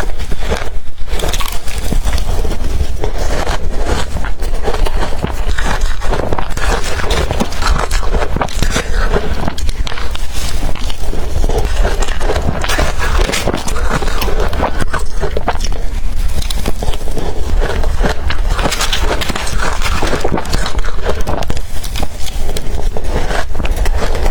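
Close-up crunching of blender-crushed ice between the teeth: dense, continuous crackling bites.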